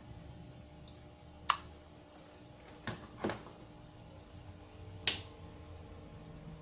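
A few sharp clicks and knocks from hands handling a Platinum Sultan MA-350R power amplifier, then a louder sharp click about five seconds in as its front-panel power switch is pressed on. A low steady hum lies underneath.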